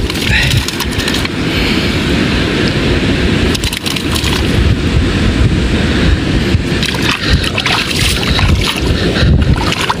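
Seawater sloshing and washing over rocks and gravel, with wind rumbling on the microphone and a few brief splashes.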